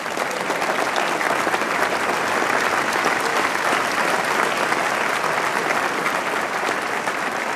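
A large audience applauding: many hands clapping, swelling over the first second or so and then holding steady.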